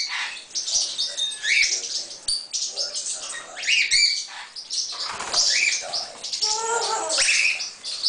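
A parrot chirps repeatedly in short, quick rising squeaks, with one lower, harsher call near the end. Rustling and clattering come from the hanging wooden-and-bead chew toy and the rope-ring perch as the bird climbs and the toy swings.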